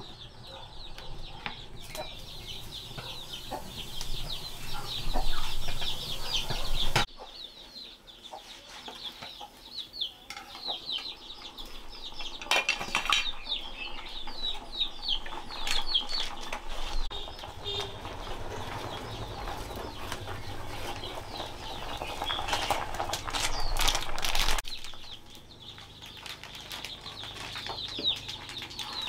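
Chickens calling, with a steady run of many short high cheeps and clucks and bursts of wing flapping. The sound changes abruptly about seven seconds in and again near the end.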